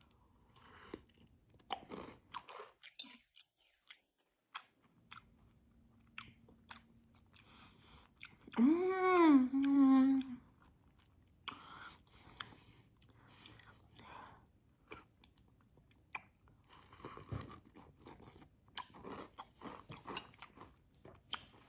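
A person chewing spoonfuls of Oreo cereal in milk, with soft crunching throughout. About eight seconds in there is one loud hummed vocal sound whose pitch rises and then falls.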